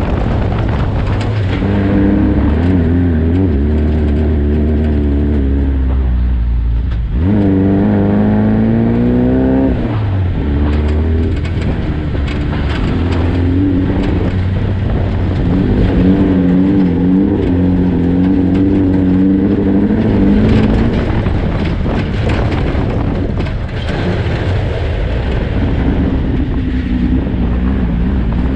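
Desert race car engine running hard under load, its pitch rising and falling with the throttle over a steady rumble of road and wind noise. About seven seconds in the engine note drops, then climbs again as it accelerates.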